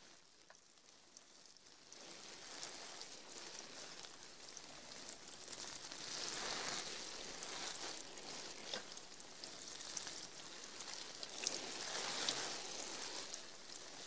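Faint rain: a soft, steady hiss with scattered drip ticks, swelling and easing several times. It starts after about two seconds of near silence.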